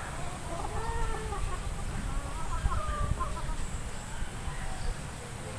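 Chickens clucking: a few soft calls in the first three seconds or so, over a steady low rumble.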